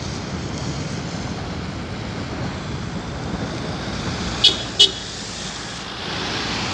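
Road traffic driving across a wet level crossing: a steady wash of passing car and tyre noise. About four and a half seconds in come two short high-pitched chirps, a third of a second apart.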